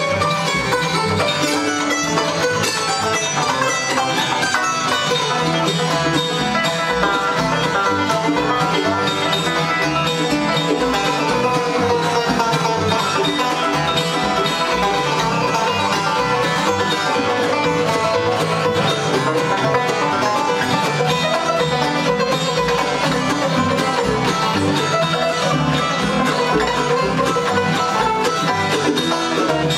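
Bluegrass band playing an instrumental tune live on acoustic instruments, with banjo picking and mandolin.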